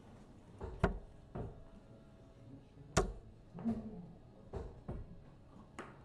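Steel-tip darts thudding into a Winmau Blade 6 sisal bristle dartboard: a series of sharp knocks, the loudest about a second in and again about three seconds in, with softer knocks between and after.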